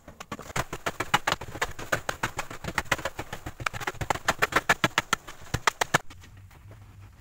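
Fast, repeated strokes of a hand tool chopping and scraping into dry, loose soil, several strokes a second, stopping abruptly about six seconds in.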